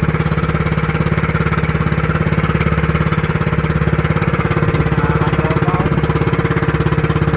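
Small fishing boat's engine running steadily with a rapid, even putter.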